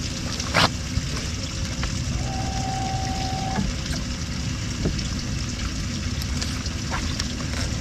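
Electric trolling motor running in reverse to back the boat up, with water churning. A steady whine lasts over a second, starting about two seconds in, and there is a sharp click about half a second in.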